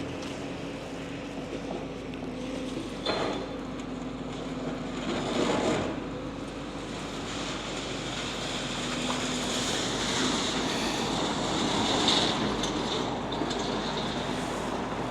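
Steady engine hum of vehicles and machinery, with traffic passing. There is a single knock about three seconds in, and a louder swell of traffic noise peaks a little before the end.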